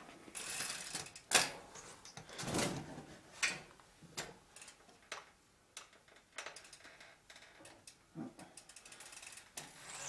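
Irregular knocks, scrapes and clicks of equipment being handled as a plastic bucket is set under the electric wood chipper's outlet and the rider mounts the bicycle that drives the generator. The sharpest knock comes about a second and a half in.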